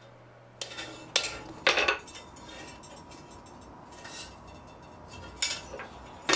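Sharp metallic clinks of steel on an anvil, spaced irregularly, as a half-inch square bar with a steel plate through its slot is set down and tapped with a hammer, cold.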